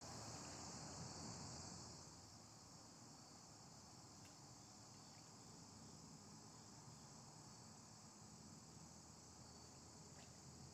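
Faint, steady insect chorus: an unbroken high trill. A low rumble sits under it for the first two seconds.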